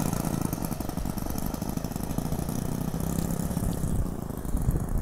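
Twin Laser 120 four-stroke glow engines of a large RC P-38 Lightning model running steadily as it taxis away over grass, the sound dimming slightly as it moves off.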